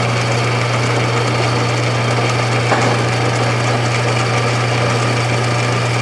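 Atlas 6-inch bench lathe running steadily with a constant motor-and-drive hum while it turns a piece of steel, with a small click about midway.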